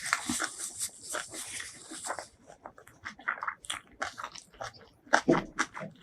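Close-miked eating sounds: chewing and crunching food in a quick run of short, wet clicks, with a louder burst of crunching about five seconds in.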